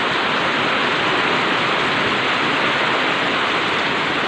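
Hailstorm: hailstones and heavy rain falling together in a steady, dense hiss, with no single impacts standing out.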